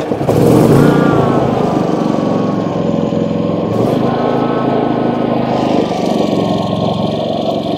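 Predator 5000 inverter generator's engine running steadily under a light load from an RV's onboard battery charger (about 3.6 amps), not yet ramped up. Its pitch eases down a little about a second in, then holds.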